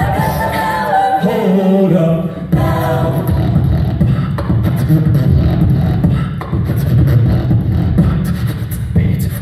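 A cappella group singing into microphones: stacked vocal harmonies over a beatboxed beat and low vocal bass. After about two and a half seconds the sung chords thin out, leaving mostly the beatboxing and bass.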